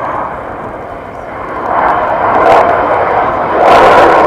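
Jet noise from a Belgian Air Force F-16's Pratt & Whitney F100 turbofan: a rough, rushing sound that swells louder about two seconds in and again near the end as the fighter climbs away nose-high.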